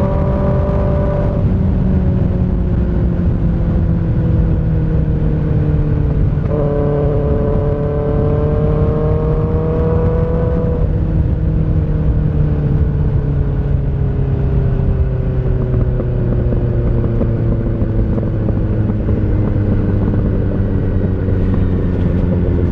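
Kawasaki ZX6R's inline-four running through an M4 GP19 aftermarket exhaust with its dB killer insert, at highway speed. About six seconds in, the engine pitch jumps up and climbs under acceleration, then sinks slowly as the bike eases off.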